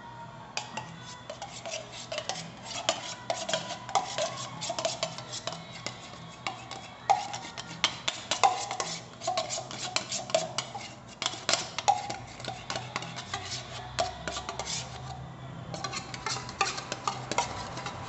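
A metal spoon scraping and clinking against the inside of an opened tin of sweetened condensed milk, scraping the tin clean. It is a quick, uneven run of scrapes and taps, with a couple of brief pauses.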